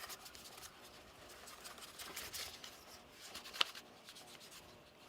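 Faint scratchy rubbing and light ticking as a small plastic ratchet bar clamp and the two pine boards it holds are handled, with one sharp click about three and a half seconds in.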